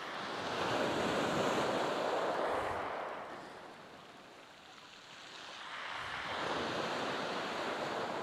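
Sea waves breaking and washing up a shingle beach: one surge swells about a second in and fades, and a second builds about six seconds in.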